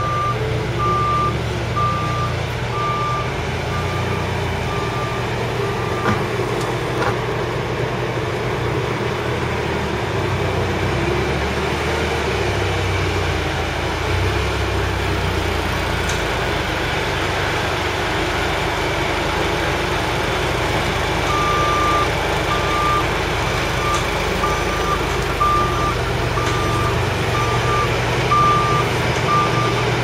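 Propane-fuelled forklift running with a steady low engine hum. Its reversing alarm sounds a repeating high beep for the first six seconds or so and starts again about two-thirds of the way through, as the forklift backs up.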